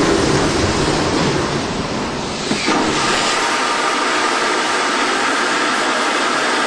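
Airbus A380 vacuum toilet system flushing: air and waste rush through the long waste pipe toward the vacuum waste tank, a loud steady rushing hiss. About three seconds in the rush loses its low, heavy part and goes on as a thinner, steadier hiss.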